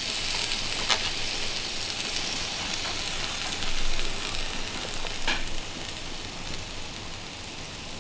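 Chicken breasts sizzling on a hot grill, with a couple of sharp metal clicks, about a second in and again past the five-second mark, as a piece is cut and lifted with tongs.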